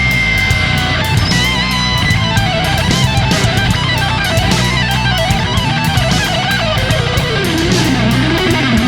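Rock music with an electric guitar lead playing a melody of bent, wavering notes over a steady low backing and drums.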